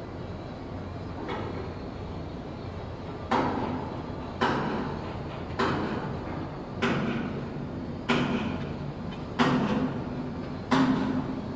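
Heavy metallic clanks, each ringing briefly, repeating about every second and a quarter in a slowly widening rhythm: seven strong strokes from about three seconds in, over a steady low rumble.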